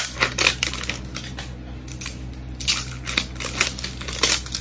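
Clear plastic shrink-wrap seal being peeled and pulled off a plastic shower-scrub bottle, crinkling and crackling irregularly in several quick runs.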